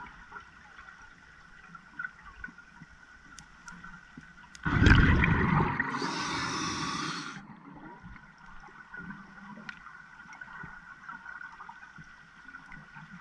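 Scuba diver exhaling through the regulator underwater: a burst of bubbles gurgling and hissing starts about four and a half seconds in and lasts about three seconds. Before and after it there are quieter stretches with faint clicks.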